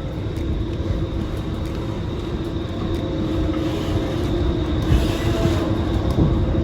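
Steady low rumble of a vehicle under way, with a constant droning hum throughout.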